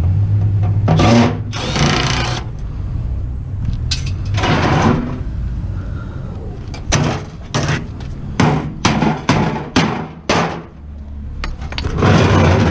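Handheld power drill running in short bursts, backing screws out of a scrap microwave's sheet-metal casing, with a run of short sharp metallic knocks in the second half.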